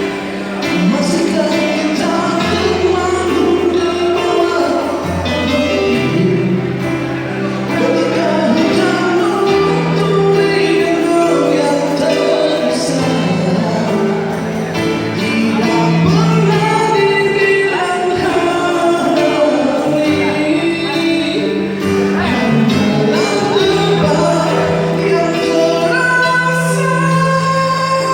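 A woman singing a Malay song over instrumental accompaniment with sustained bass notes.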